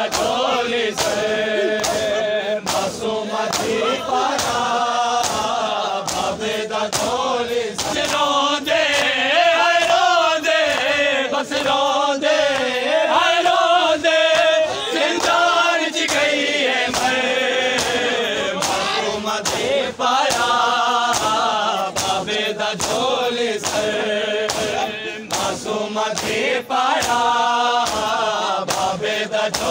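A crowd of men chanting a mourning lament (noha) in unison, with regular sharp slaps of hands striking bare chests (matam) through the chant.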